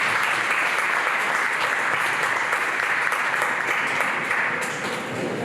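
Audience applauding, steady clapping that eases off slightly near the end.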